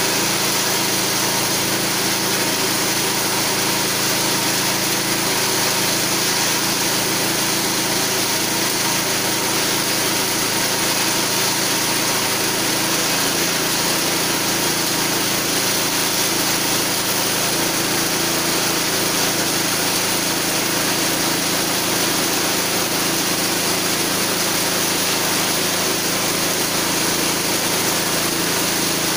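A 6.5 hp small engine runs steadily at working speed, driving a homemade chainsaw mill's chain lengthwise through a log. The engine drone and the high rasp of the chain cutting wood go on evenly throughout.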